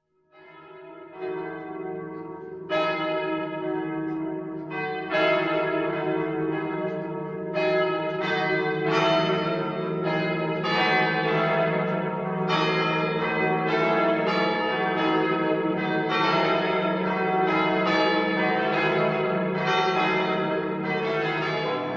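Church bells ringing, several bells struck one after another every second or two, their hum carrying on between strikes. The ringing fades in at the start.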